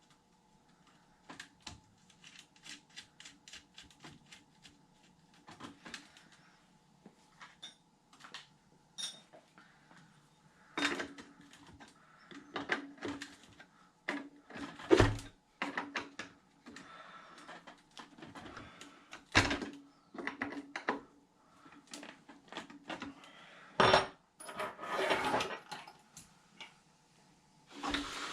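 Small hard clicks and taps of hand tools and RC truck parts being handled on a workbench, with a few louder knocks about halfway through and near the end.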